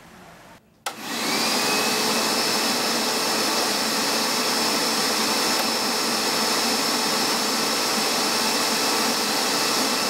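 Hoover MAXExtract SteamVac Dual V carpet extractor switched on with a click about a second in; its suction motor spins up with a brief rising whine, then runs steadily with a high whine.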